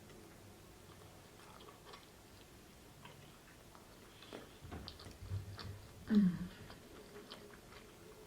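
A person chewing a bite of pizza close to the microphone: soft wet mouth clicks and smacks, busiest a little past halfway. About six seconds in comes a short hummed "mm" that falls in pitch.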